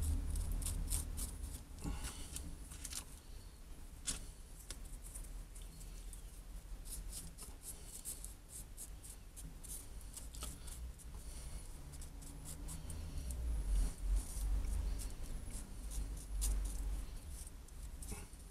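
Small stick scraping and dabbing marble resin across the broken stone face of a fossil nodule: many short scrapes and ticks, with the foil-wrapped stone being handled and a few low bumps on the bench near the end.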